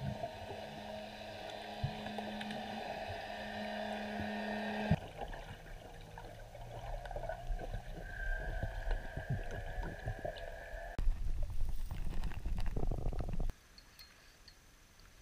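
Muffled underwater sound from a camera in a waterproof housing as a spearfisher swims below the surface: low water noise under a steady hum of several fixed tones. Near the end a louder rush of water noise cuts off suddenly, leaving near silence.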